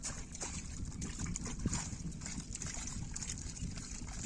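Shallow pond water splashing and trickling in scattered small splashes as fish are picked by hand out of a drawn-in fishing net into plastic baskets.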